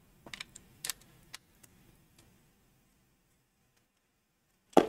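A few light clicks and ticks from handling a headphone cable and its plugs in the first second and a half, then near silence, then one sharper click near the end.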